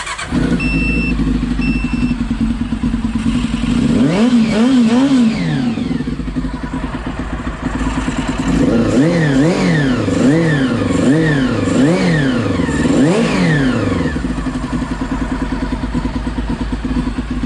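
Honda CBR400 inline-four motorcycle engine running just after starting, idling with a steady note and blipped on the throttle several times, pitch sweeping up and back down with each blip. Two short electronic beeps sound about a second in.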